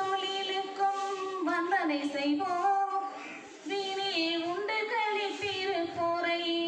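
A woman singing a Tamil song unaccompanied into a handheld microphone, holding long notes with slow glides between them, with a short break about three and a half seconds in.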